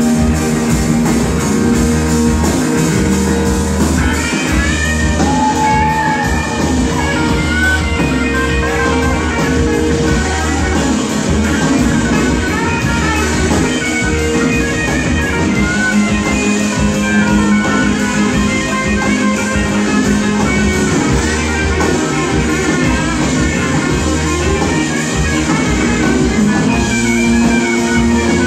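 Live rock band playing an instrumental stretch: a lead guitar line with bending notes over bass, drums and keyboards.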